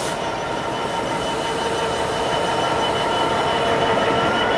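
Freightliner Class 66 diesel locomotive passing with its train of hopper wagons: a steady rumble of wheels on rails that grows slightly louder, with thin steady squealing tones from the wheels and a faint tone that rises in pitch near the end.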